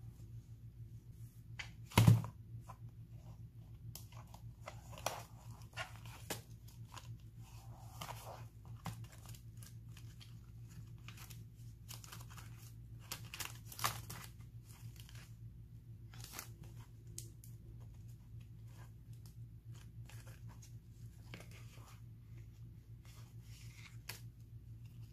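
Paper and clear plastic binder pouches being handled: irregular rustling, crinkling and small clicks as paper is pressed down and plastic sleeves are leafed through. There is a sharp knock about two seconds in, the loudest sound, and a faint steady hum underneath.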